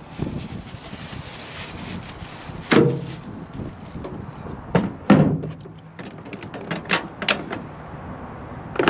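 Hard plastic DeWalt tool case being handled and shifted on a pickup truck bed: a few separate thumps and clunks, with a quick run of sharp plastic clicks about two-thirds of the way through.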